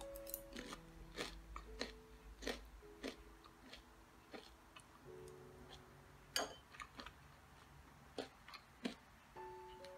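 Crunchy chewing of crisp, starch-battered fried king oyster mushroom: scattered sharp crunches, several in the first three seconds and a few more after about six seconds. Soft background music of gentle held notes plays underneath.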